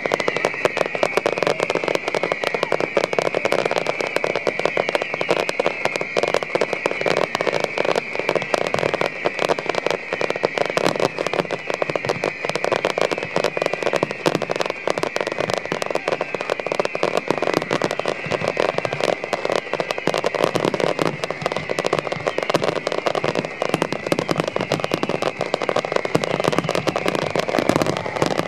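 Fireworks display: shells bursting and crackling in dense, rapid succession, with no let-up.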